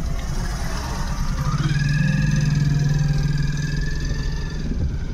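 Car engine and road noise heard from inside a slowly moving vehicle. About a second and a half in, a whine rises and holds for about three seconds as the engine note grows louder, then fades.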